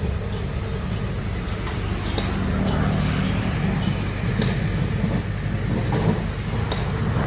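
Heavy diesel engine of a large excavator running steadily under load, a low drone that swells slightly partway through, with a few light clicks on top.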